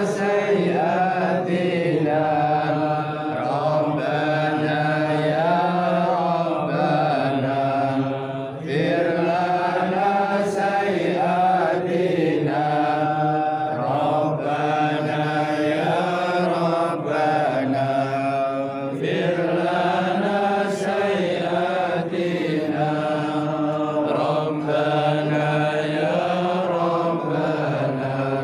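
Several voices chanting together in unison, a slow religious chant of long drawn-out phrases that pause briefly every few seconds.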